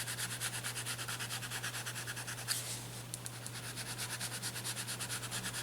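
White charcoal pencil scratching on paper in quick, even back-and-forth shading strokes, with one stronger stroke about halfway through.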